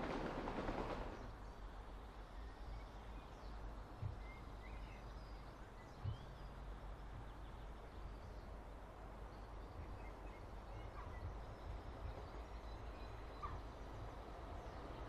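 Quiet outdoor trackside ambience: a low steady rumble with a few faint bird chirps and two soft thumps, about four and six seconds in. A louder noise fades away in the first second.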